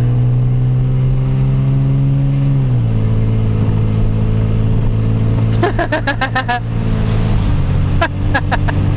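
Car engine running steadily while driving, its pitch dropping about three seconds in as the car eases off or shifts. About halfway through and again near the end comes a quick run of short, squeaky chirps.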